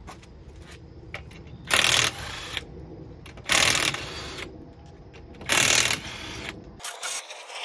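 Cordless impact wrench loosening the lug nuts on a car's front wheel: three short bursts of rapid hammering, about two seconds apart.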